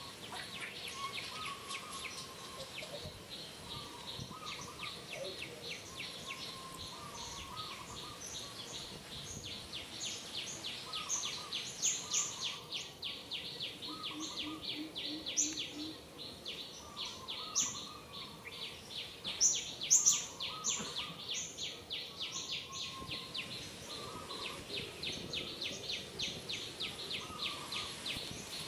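Outdoor birds and insects: a steady, rapidly repeated high chirping, several pulses a second, with scattered sharper chirps that are loudest in the middle.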